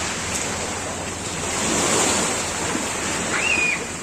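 Sea waves washing, with wind buffeting the microphone. A short high call cuts through near the end.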